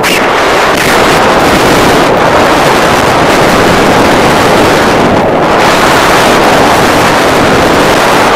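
Loud wind noise from the airflow of paraglider flight buffeting the camera microphone, a steady rushing with gusty swells.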